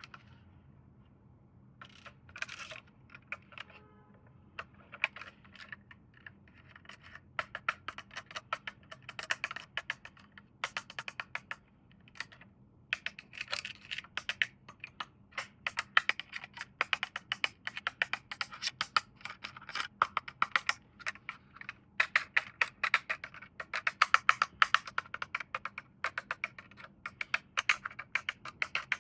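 Rapid clicking and crackling of plastic toy parts and packaging being handled during an unboxing. A few scattered clicks at first, then dense quick runs of clicks from about seven seconds in.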